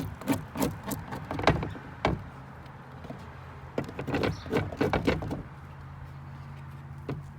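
A pocket tool scraping old comb and pollen out of a wooden beehive frame in quick short strokes, in two runs. A steady low hum comes in about halfway through.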